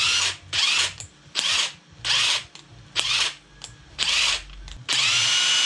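Makita cordless impact wrench run unloaded in the air, six short trigger pulls about once a second, then held for a longer run with a steady whine as the motor comes up to speed. This is a test run showing the repaired tool works again.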